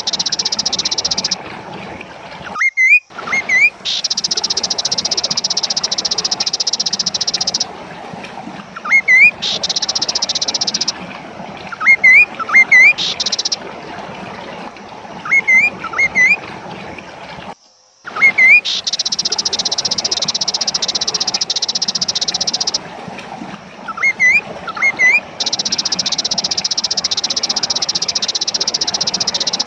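Kaso-kaso bird calling: loud, short upslurred whistles in quick pairs and triplets, repeated every few seconds. Between them run long stretches of a steady high-pitched buzz that cuts in and out.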